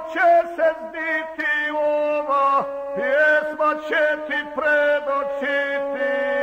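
A male guslar chanting a South Slavic epic song to the gusle, the single-string bowed fiddle. The melody wavers over a held lower note, with quick sliding ornaments and short downward swoops.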